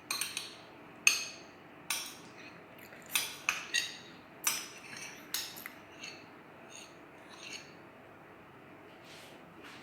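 A kitchen utensil clinking and tapping against a dish in irregular strikes, each with a short ring, fainter and sparser after about six seconds.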